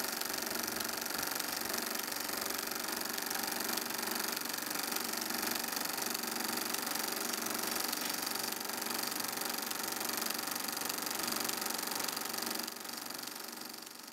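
Cine film projector running steadily with a continuous mechanical clatter, dropping in level near the end.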